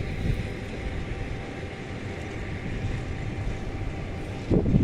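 EP2K electric locomotive with a passenger train, heard from a distance as a steady low rumble with a faint steady hum. About four and a half seconds in, wind starts buffeting the microphone.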